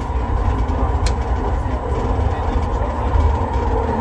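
Interior running noise of a Bombardier Innovia Metro 300 (ART Mark III) SkyTrain car moving along the guideway: a steady low rumble with a steady whine over it, and one sharp click about a second in.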